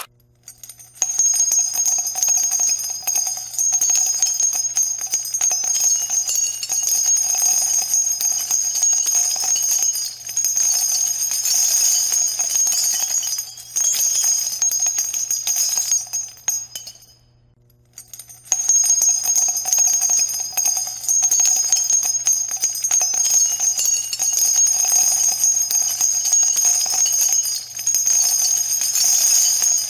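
Background music with bright ringing bells like jingle bells, breaking off briefly about two-thirds of the way through and then starting again.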